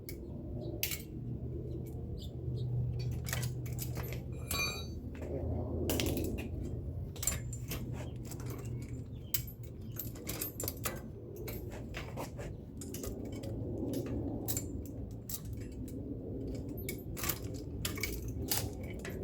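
Irregular metal clinks, clicks and knocks of tools and bike parts as an electric bike's hub-motor wheel is taken off, over a low steady hum.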